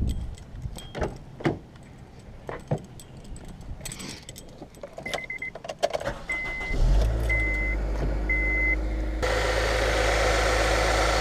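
A series of clicks and knocks, then several short electronic chime beeps about a second apart, before the Honda Civic's engine starts a little past halfway through and settles into a steady idle, which gets louder about two seconds later. The engine running shows the no-start is cured.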